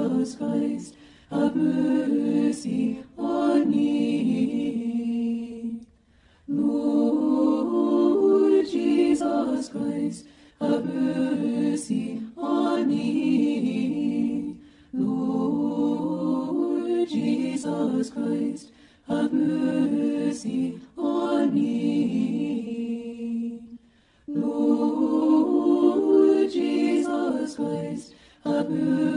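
A cappella choir chanting a short prayer phrase in harmony, repeated again and again in phrases of about four to five seconds with brief pauses for breath between them.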